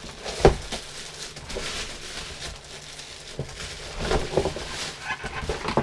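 Packaging being handled: a sharp thump about half a second in, then plastic and cardboard rustling and crinkling in irregular bursts.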